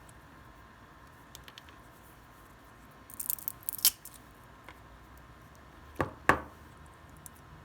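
Hands handling small hardware at a workbench: a few light ticks, a short scratchy rustle, then two sharp clicks about a third of a second apart, over a faint steady hum.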